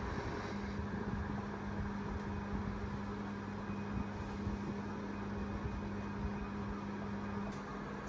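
Steady machine hum with a low constant tone over an even background hiss.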